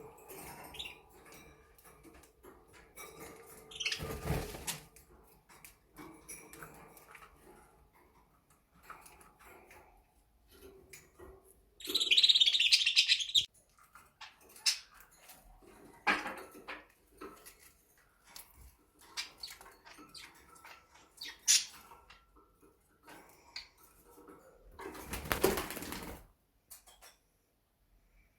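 Pet budgerigars moving about their cage, with wings fluttering and scattered light clicks. There is a short, loud, shrill burst of calling about twelve seconds in and another flurry near the end.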